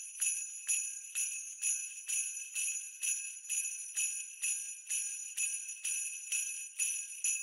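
Jingle bells shaken in an even rhythm, about two shakes a second, each shake ringing on.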